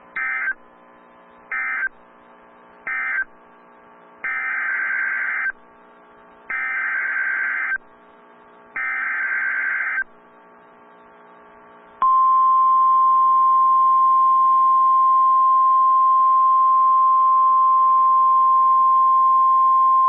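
Emergency Alert System data bursts and alarm from a NOAA Weather Radio broadcast. First come three short buzzing bursts of digital code, the end-of-message signal closing one warning. Then come three longer bursts about two seconds apart, the SAME header announcing the next warning. About 12 seconds in, the single steady weather radio warning alarm tone starts and runs on.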